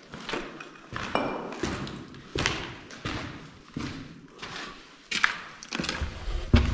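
Footsteps on a concrete floor strewn with grit and debris, about three steps every two seconds, each with a short echo.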